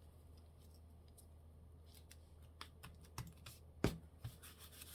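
Paper being peeled up from a glued page and handled: faint clicks and light taps that begin about halfway in, with one sharp tap near the end, over a low steady hum.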